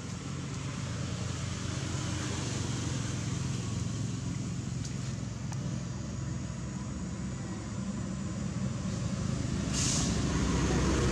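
Steady low engine rumble of a motor vehicle running, growing louder toward the end, with a brief hiss about ten seconds in.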